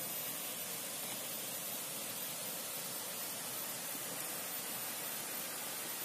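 A steady, even hiss with no distinct events.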